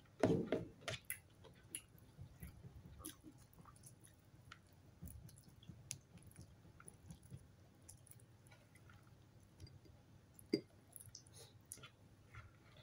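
Chewing and mouth sounds of someone eating fried tilapia and rice by hand. The sounds are loudest in the first second, then thin out into scattered small clicks and soft smacks as fingers pick at the fish, with one sharp click about ten and a half seconds in.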